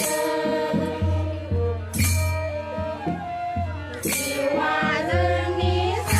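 Mixed group of men and women singing a Bodo Bathou prayer song (aroj) together, with a crisp strike about every two seconds.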